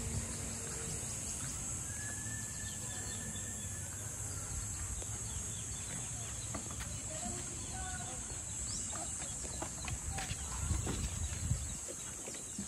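Outdoor rural ambience: a steady high insect drone with scattered short bird calls over a low rumble, and a few knocks near the end.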